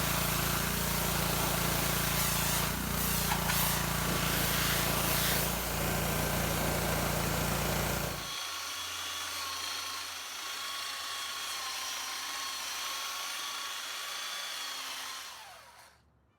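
Power tools running on wood: a loud tool with a low motor hum for about eight seconds, then, after a cut, a quieter tool with a high whine that stops shortly before the end.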